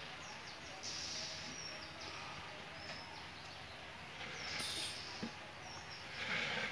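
Quiet outdoor background with faint, scattered bird chirps and a few soft rushes of noise.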